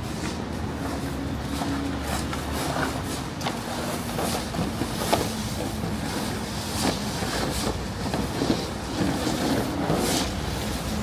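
City street ambience: steady traffic noise with a low engine hum, and scattered short sharp taps.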